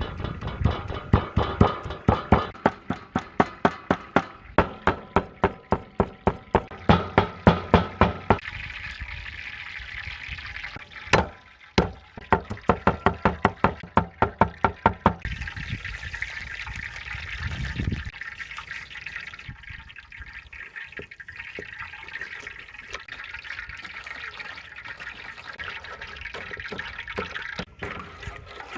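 Knife chopping rapidly on a cutting board, about three to four strokes a second, in two runs. After the chopping stops there is a steady hiss.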